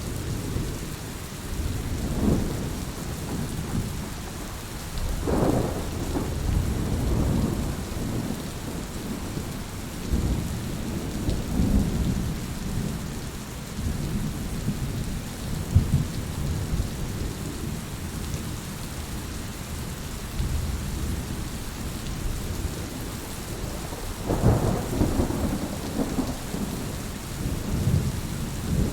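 Heavy rain falling steadily, with thunder rumbling low underneath throughout and swelling louder twice, about five seconds in and again near the end.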